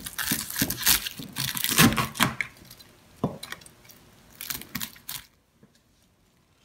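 Kitchen knife slicing through freshly fried, potato-starch-crusted chicken thigh on a cutting board: a run of crackling crunches as the crisp coating breaks, with knife clicks against the board. The crunching thins to a few separate clicks and stops about five seconds in.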